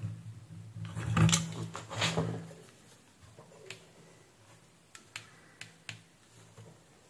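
Handling noise as a circuit board is set down on a rubber work mat, followed by a few sharp clicks of a digital multimeter's buttons being pressed; a low hum sits underneath.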